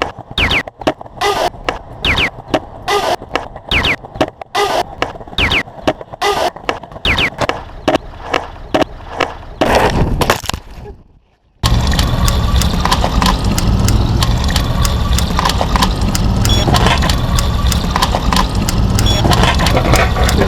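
An edited collage of city sounds: a fast, rhythmic looped pattern of clattering knocks and clicks with short falling squeaks, which fades out about halfway. It then cuts to a steady rumbling, traffic-like noise with a slowly rising tone.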